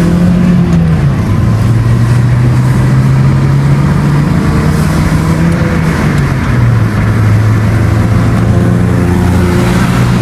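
Honda Civic engine running through a muffler-delete exhaust fitted with a small bullet-type sport muffler while the car is driven. The engine note climbs and drops several times, with drops about a second in and again past the middle. It sounds a little sporty without being very loud.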